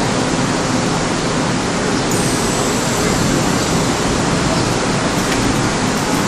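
A steady, even rushing noise with no distinct knocks, chimes or motor tones standing out.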